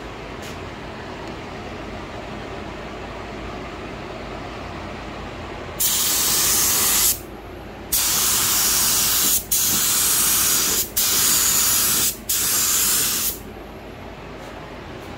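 Gravity-feed spray gun spraying black base coat: five bursts of hiss, each about a second long, starting about six seconds in, with short breaks where the trigger is let go.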